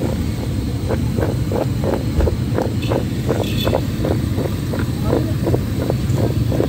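Raw potato fries being shaken and tossed in a plastic bowl with a powdery masala coating, a soft rhythmic rattle about three strokes a second. Under it runs a steady low rumble of street traffic.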